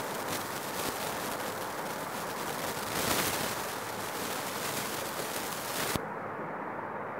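Steady background hiss with no speech. About six seconds in there is a single click, after which the hiss loses its higher part and sounds duller.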